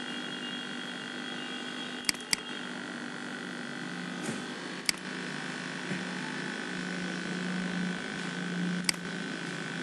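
Computer mouse clicking over a steady background hum: a quick double click about two seconds in, then single clicks near the middle and near the end.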